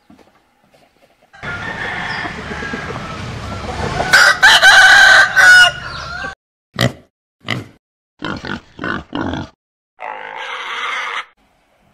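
Chickens calling: a loud rooster crow about four seconds in, over a noisy stretch, followed by a string of short, separate clucks.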